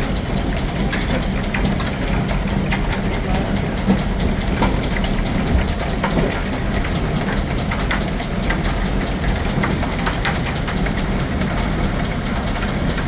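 Steam-engine-driven Frick sawmill running: a steady mechanical din with light ticks scattered through it.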